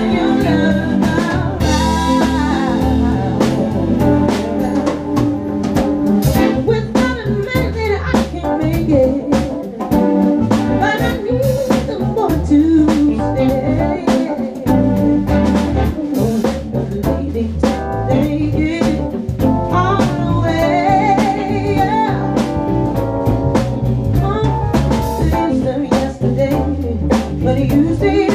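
Live band playing a mid-tempo R&B groove: drum kit, bass guitar through a 1960s Acoustic 360 folded-horn bass amp, keyboards and guitar, with a woman singing lead over it.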